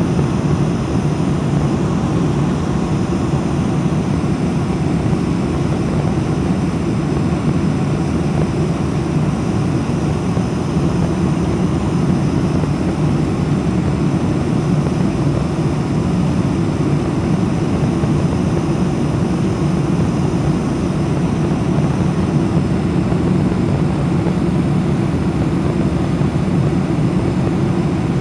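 Cabin noise of a Boeing 747-400 climbing out just after takeoff, heard from a window seat behind the wing: the four jet engines at climb power and the rushing airflow make a steady, loud, deep rumble with no change in level.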